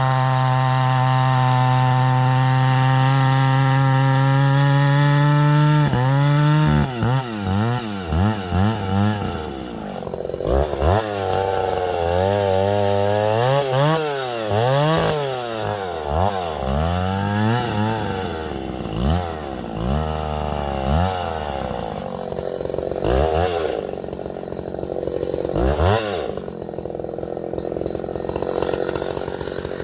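Vintage Husqvarna L65 two-stroke chainsaw held at full throttle for about six seconds with its pitch creeping up, then dropping off suddenly and revved up and down in a string of throttle blips, settling lower near the end.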